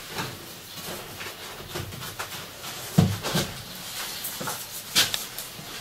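Scattered knocks and light clatter of objects being handled in a room, with two louder sharp knocks, about three seconds in and again about five seconds in.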